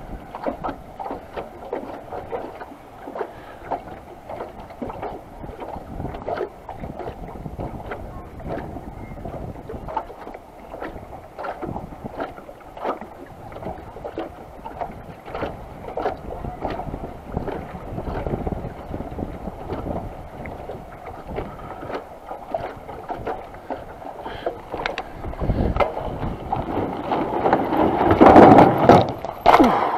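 Mountain bike tyres rolling over a wooden boardwalk, a steady run of knocks and clicks as they cross the deck planks, with wind on the microphone. Near the end a louder rattle and rumble as the bike rolls onto the metal plate at the boardwalk's end.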